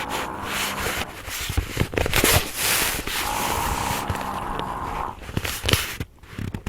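An elderly woman snoring: two long snores about three seconds apart, with clicks and scrapes between them.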